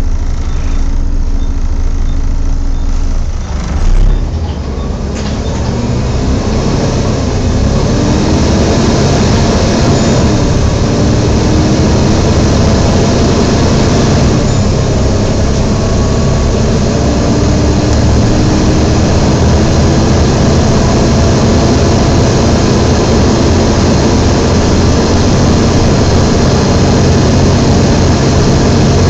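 Volvo B7TL double-decker bus heard from inside while it drives: the diesel engine pulls with its pitch rising several times, under the loud, steady 'hoover' drone of its cooling fan. There is a single louder knock about four seconds in.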